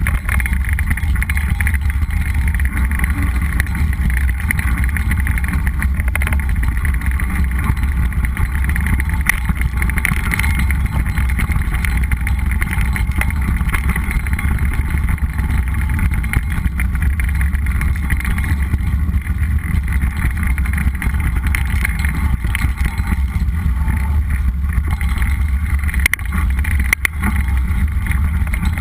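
Steady wind rush and low rumble on the microphone of a bike-mounted camera as a mountain bike rolls fast down a dirt trail, with a few sharp knocks from trail bumps near the end.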